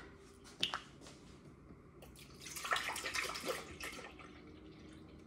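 Coconut milk poured from a carton into a blender jar: a splashing pour that runs for about two seconds in the middle, after a short click about a second in.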